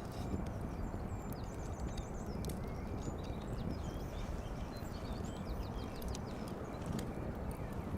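Small birds chirping in short, quick phrases from about one and a half to five and a half seconds in, over a steady low rumbling noise, with a few sharp clicks near the end.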